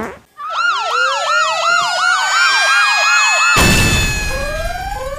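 A siren-like warble: a high wavering tone that rises and falls about three times a second over a slowly rising tone. A little past halfway it gives way to a loud hiss, and rising chirps start near the end.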